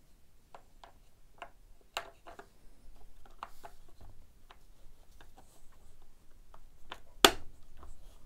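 Plastic side cover of a Makita DUC356 cordless chainsaw being pressed on by hand: scattered light plastic clicks and taps, then one loud sharp snap about seven seconds in as the cover seats firmly.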